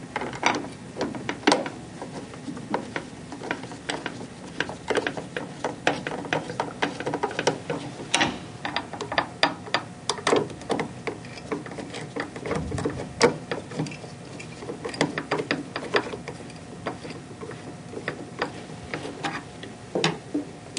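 Phillips screwdriver tightening the captive screws that hold a peristaltic pump to its metal bracket: a run of irregular small clicks and scrapes of the driver and the pump hardware being handled, with one dull knock about halfway through.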